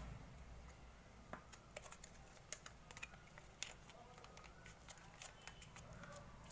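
Faint, irregular clicks and crinkles of a small plastic sauce sachet being handled and squeezed out over a plate of noodles.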